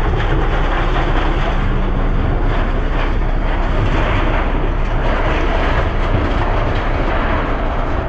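A heavy engine running steadily and loudly, with a low hum underneath.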